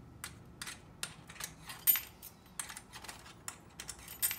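Uncut metal key blanks clinking against one another as they are hung on a rack hook: a run of sharp metallic clicks, with two louder clinks about two seconds in and near the end.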